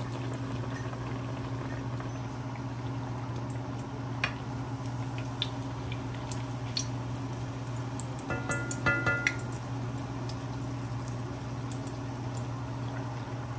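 Battered Oreo deep-frying in hot oil in a cast iron skillet: steady sizzling with scattered crackles and pops over a steady low hum. A little past halfway, a metal slotted spoon clinks against the pan several times with a short ring.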